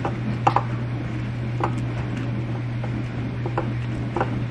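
Raw seasoned potato fries being handled and tossed by hand, giving a few scattered soft clicks and knocks over a steady low hum.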